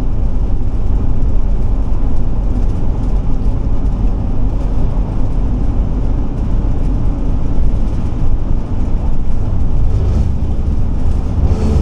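Steady engine and road rumble inside the cab of a Class C motorhome on a Ford E450 chassis cruising at highway speed, mostly low rumble with a hiss of tyres above it.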